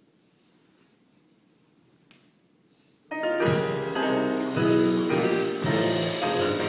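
Quiet room tone, then about three seconds in a piano starts suddenly, playing full chords of accompaniment.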